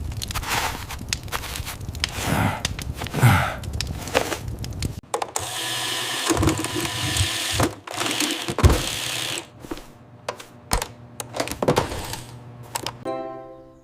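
Cartoon sound effects: a busy run of clicks and knocks, with a hissing rush from about five to nine seconds in.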